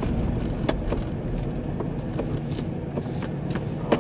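Steady low rumble of a vehicle, with scattered sharp ticks of raindrops striking the car.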